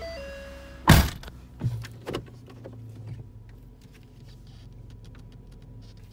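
2014 Ford Taurus engine idling just after a cold start, a steady low hum heard from inside the cabin. A loud thump comes about a second in, followed by two smaller knocks.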